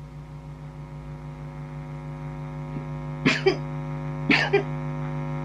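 Two quick sneezes about a second apart, each with a double burst, over a steady low hum that slowly grows louder.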